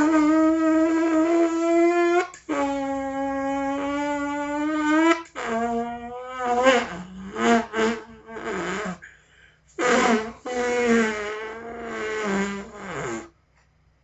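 A series of farts: two long, steady-pitched ones lasting about two to three seconds each, then several short sputtering ones, and after a brief pause a longer one that drops in pitch as it ends.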